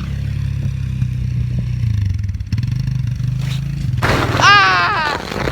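Four-wheeler (ATV) engine running steadily at a low, even pitch, with a high-pitched shout about four seconds in.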